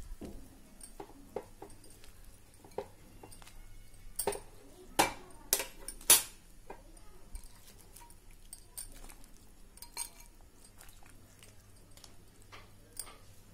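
Raw chicken pieces being put by hand into a steel pot of boiling water, with short knocks and clinks against the pot. The loudest few come between about four and six seconds in, over a low steady hum.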